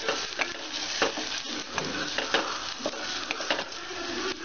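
Chopped onions and green chillies sizzling as they fry in oil, with a wooden spatula stirring and scraping against the pot in irregular taps.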